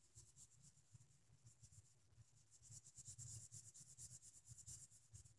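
Faint, rapid scratching strokes of colouring on paper, a colouring tool rubbed back and forth to fill in a line, growing a little louder about halfway through.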